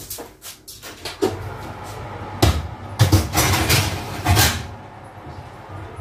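A run of knocks and clunks from kitchen doors and cookware being handled, loudest between about two and a half and four and a half seconds in.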